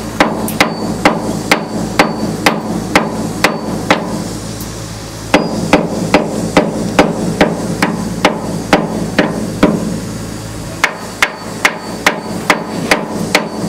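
Hammer blows on metal while a rivet is removed from a wrought-iron bridge beam: sharp, even strikes about two a second, in three runs with two short pauses. A steady low hum runs underneath.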